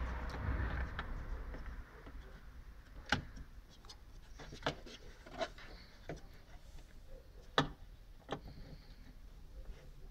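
Hands handling the plastic and rubber parts of a BMW E46 xenon headlight: rustling for the first couple of seconds, then a string of sharp clicks and taps as the bulb's connector and igniter cap are fitted.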